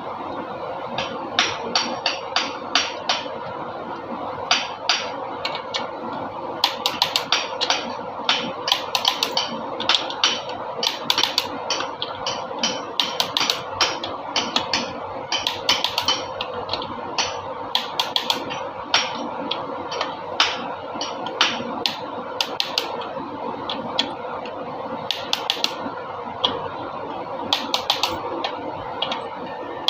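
Hand tools working on engine parts: irregular sharp metallic clicks and taps, often in quick runs of several, over a steady hum.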